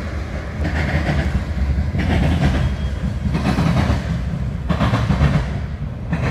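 Manifest freight train rolling past with a steady low rumble, its wheels clattering on the rail in surges a little more than once a second.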